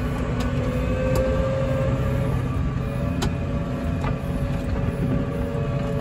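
Tractor engine running steadily, heard from inside the cab while driving, with a few sharp knocks over the hum.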